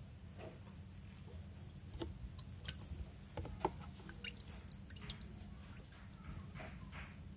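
Water dripping and splashing lightly in a shallow plastic tub as a baby snapping turtle is dipped in by hand and lifted out. It comes as a scatter of short drips and splashes through the middle of the clip, the loudest about three and a half seconds in, over a low steady hum.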